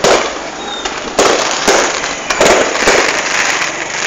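Fireworks going off: a run of sharp bangs, roughly one every half second to a second, each trailing off with a rumbling echo.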